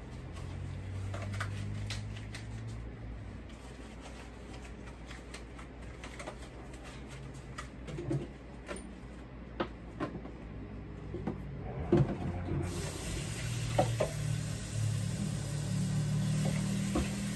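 Dishes and utensils clinking and knocking against each other and the sink while being hand-washed; about two-thirds of the way through, the tap comes on and water runs with a steady hiss.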